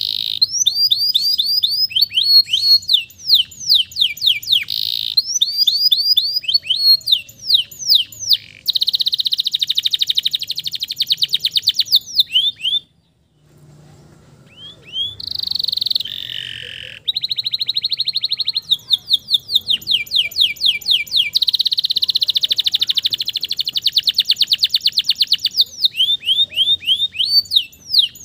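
Male domestic canary singing a long, continuous song of fast trills, rapid repeated notes and rolling buzzy phrases. It pauses briefly about halfway through, then carries on.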